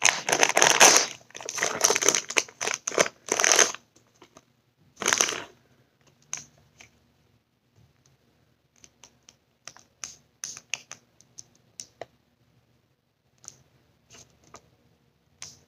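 Packaging rustling and crinkling as a blind-pack toy wand is unwrapped, in several dense bursts over the first four seconds and once more about five seconds in. Then come scattered small clicks and taps as the plastic wand and its stand are handled.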